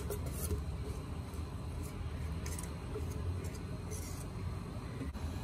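Thick dhokla batter being poured from a bowl into a steel tin and scraped out with a wire whisk, giving faint scrapes and light taps of metal on metal. Under it runs a steady low rumble.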